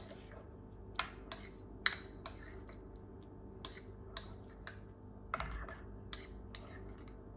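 A metal spoon stirring thick tomato-ketchup pizza sauce in a small white ceramic bowl. The spoon taps and scrapes against the bowl in irregular light clicks, the strongest about a second in and again just before two seconds.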